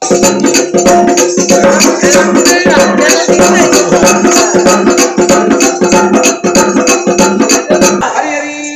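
Oggu katha folk percussion: a frame drum struck with a stick and small hand cymbals play a fast, even beat, about five strikes a second, over held musical tones. The beat stops about eight seconds in, leaving a held tone.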